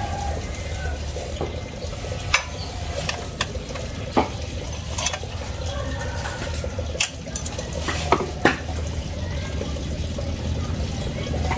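Metal hand tools clinking and tapping on a scooter engine during valve clearance adjustment, about seven sharp separate clicks over a steady low hum.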